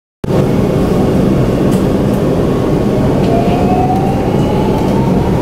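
Shanghai Metro Line 9 train running, heard from inside the car: a steady rumble of wheels and running gear that cuts in a moment after the start. About three seconds in, a thin electric motor whine rises steadily in pitch as the train gathers speed.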